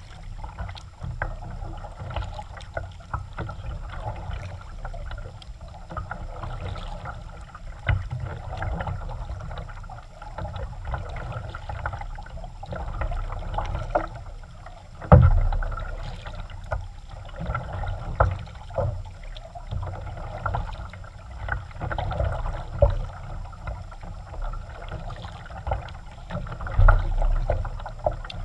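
Kayak being paddled: the paddle dips and splashes in the water with irregular small knocks. A loud thump comes about halfway through, and another near the end.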